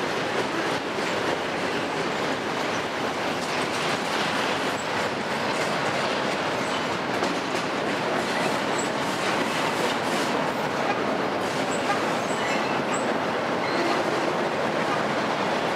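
Freight train of enclosed autorack cars rolling past at steady speed: the even noise of steel wheels running on the rails.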